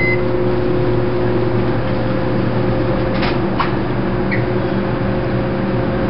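Sunbeam microwave oven started with a short keypad beep, then running with a steady hum.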